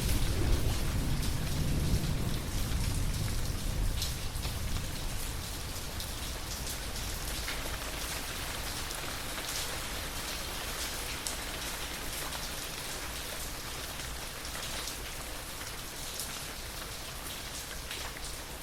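The low rumble of thunder dies away over the first few seconds, leaving steady rainfall with scattered sharp drop hits.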